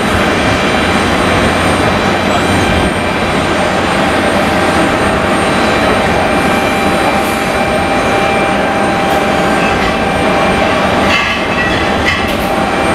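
Jet airliner engines: a loud, steady roar with several steady whining tones over it, and a few faint clicks near the end.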